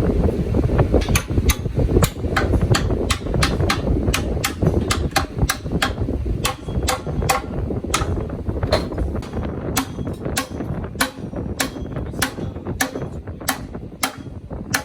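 Repeated sharp hammer strikes on metal, about two or three a second, over a low rumble that dies down in the second half.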